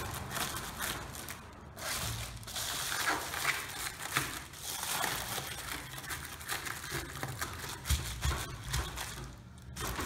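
Foil-faced bubble insulation (Reach Barrier air-reflective) crinkling and crackling irregularly as it is pressed and tucked into a garage door panel by hand.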